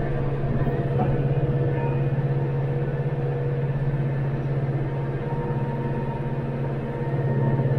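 Branson 5520 tractor's diesel engine running steadily under load, driving a Titan 1206 rotary cutter (brush hog) through ditch grass: a steady low drone that eases slightly about five seconds in and picks up again near the end.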